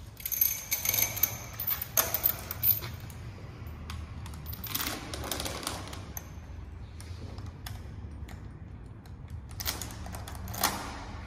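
Steel chain of a dip belt rattling and clinking against a weight plate and the belt's metal clip as the chain is threaded through the plate and clipped on, with light ringing from the links. The clinking comes in bursts, busiest in the first few seconds, again midway and near the end.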